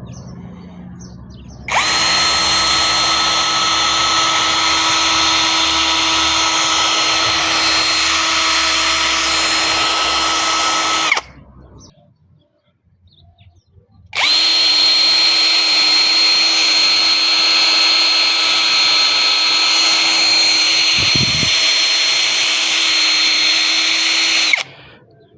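Anirona AA13NBL electric drill running twice at a steady, unchanging speed with a high motor whine, each run lasting about ten seconds, with a pause of a few seconds between them.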